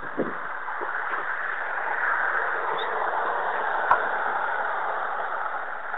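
Diesel locomotives of a freight train approaching, heard as a steady rushing noise through a low-quality phone microphone, with a short thump just after the start and a sharp click about four seconds in.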